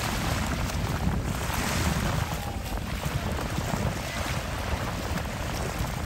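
Wind rumbling on the microphone over the steady wash and hiss of small waves at the sea's edge, swelling and easing by turns.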